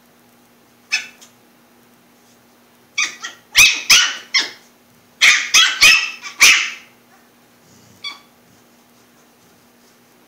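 Small puppy yapping in short, high-pitched barks: one yap about a second in, then two quick runs of several yaps, and a last one near the end.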